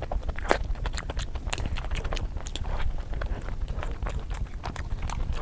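Close-miked eating sounds: someone chewing street food, with quick irregular crunches and wet mouth clicks over a steady low rumble.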